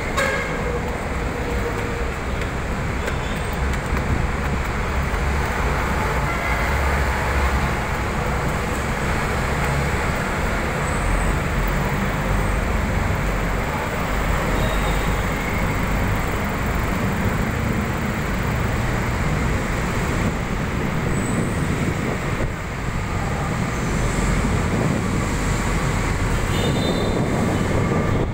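Heavy road traffic heard from above: a continuous rumble of buses, cars and motorcycles passing on a multi-lane road.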